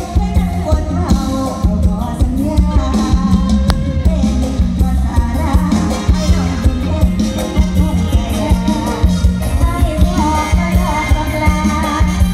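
Loud live Isan mor lam band music: a heavy bass and drum beat under a wavering lead melody.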